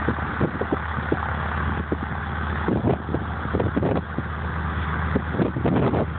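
North American T-6 Texan's 600-horsepower nine-cylinder Pratt & Whitney R-1340 radial engine running at low taxi power, with irregular low thumps through the steady rumble.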